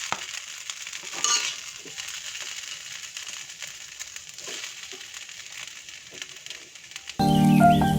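Food sizzling and crackling as it fries in a pan, with scattered small clicks of stirring and a short ringing clink about a second in. Background music comes in abruptly about seven seconds in.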